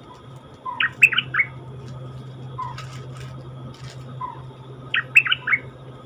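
Stripe-throated bulbul singing: two short phrases of quick notes, one about a second in and another near the end, each led by a single softer, lower note.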